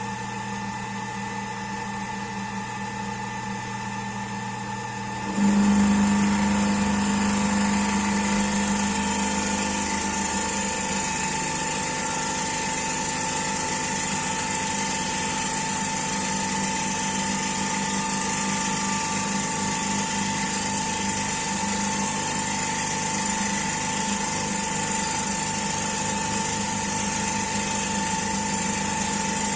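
CNC milling machine running with a steady hum; about five seconds in it gets suddenly louder and a high whine sets in, then runs on steadily.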